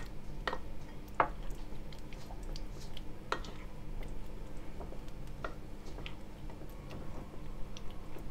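Thick peanut butter and agave syrup being stirred in a small bowl: the utensil clicks against the bowl at irregular intervals, with a soft squish of the sticky mixture.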